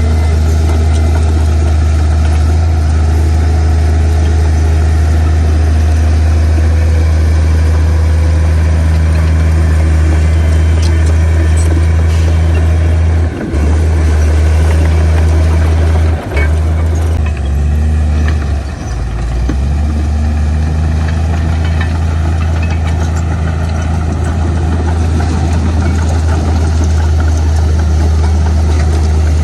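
Heavy diesel engine of a Komatsu D58P bulldozer running with a steady low drone, dipping briefly a couple of times about halfway through and dropping lower for a moment a little later.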